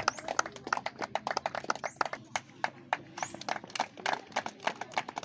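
A small group of people clapping hands, the claps uneven and separately audible rather than merging into a steady roar.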